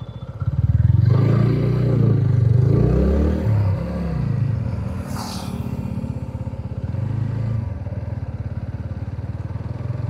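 Motorcycle engine running under way, its pitch swinging up and down a few times in the first few seconds, then running steadier. A brief hiss about five seconds in.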